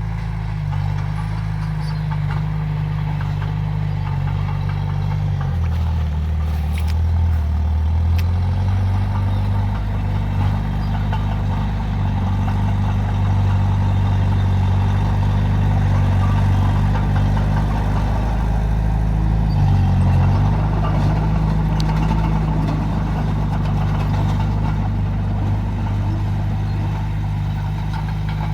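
Heavy diesel engine of earthmoving machinery running steadily. Its note drops lower about six seconds in for a couple of seconds and shifts briefly again about twenty seconds in, with a few light clicks around seven seconds in.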